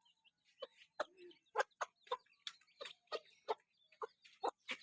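Hen clucking softly: about a dozen short, separate clucks spaced irregularly.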